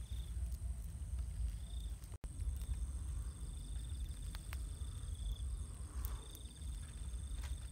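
Night insects: a steady high-pitched whine and a pulsing, cricket-like trill that comes in bursts, the longest lasting a few seconds. A wood campfire gives a few sharp crackles over a low rumble.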